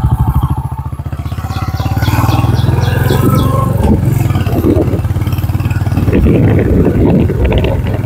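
Small two-wheeler engine running while being ridden, heard from on the bike as a steady low pulsing throb. It dips for a moment about a second in, then runs steadily again.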